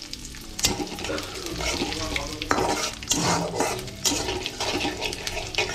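Whole spices (bay leaf, dried red chillies, cumin and fennel) sizzling in hot oil in a steel kadai while a metal spatula stirs them, scraping against the pan several times: the phoron, the spice tempering for a dal.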